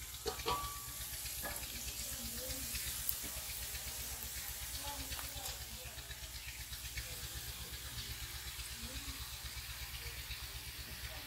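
Sliced onions frying in hot oil in a steel karahi, a steady sizzle, with a wooden spatula knocking and scraping against the pan a few times about half a second in. A steady low hum runs underneath.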